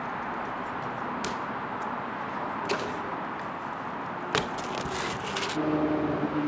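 BMX bike rolling on asphalt with a steady tyre hiss and a couple of light clicks, then a sharp clack as the bike lands about four and a half seconds in, followed by about a second of rattling from the bike. Music with held low notes starts near the end.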